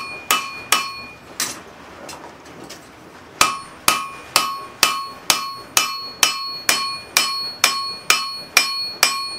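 Hand hammer striking a hot railroad spike, being forged into a tomahawk head, on an anvil, with a ringing note after each blow. These are light clean-up blows to smooth out hammer marks. A few strikes, a pause of about two seconds, then steady blows about two a second.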